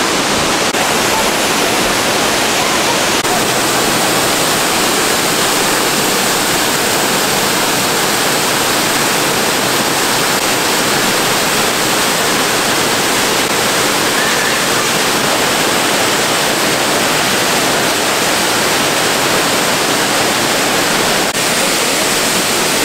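A waterfall's steady rush of falling water: a loud, even, unbroken wash of noise.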